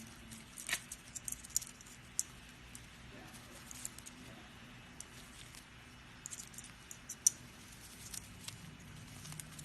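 Faint, scattered light clicks and rustling, with a few sharper ticks, over a low steady hum.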